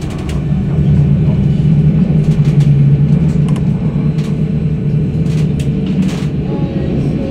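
Steady low rumble of a tram running on its rails, heard from inside the car, with scattered light clicks and rattles.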